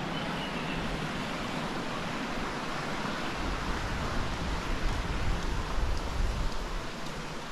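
Steady rush of a waterfall's falling water, with a low rumble joining about halfway through.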